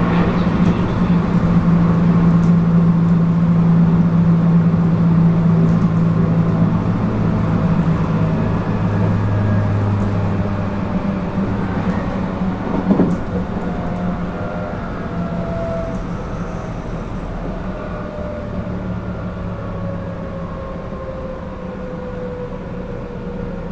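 Running sound inside a 221 series electric train motor car: the MT64 DC traction motors and gears whine under the floor over rail noise and a steady low hum. From about halfway the whine falls in pitch and the sound grows quieter as the train slows. A sharp knock comes about 13 seconds in.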